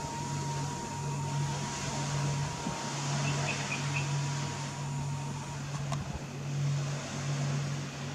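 Steady background noise with a low machine hum that drops out briefly now and then, a thin steady high tone that stops about five and a half seconds in, and a few faint chirps a little after three seconds.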